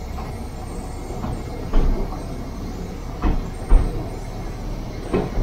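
Ford Model T rail car running along the track, heard from inside its wooden cab: a steady rumble from its four-cylinder side-valve engine and wheels, broken by several sharp knocks from the wheels on the rails, the loudest about two seconds and three and a half seconds in.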